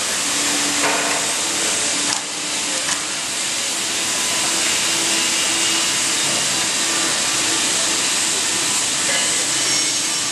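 Steady hiss of a hydraulic riveting machine and its power unit running, with a few brief knocks in the first three seconds.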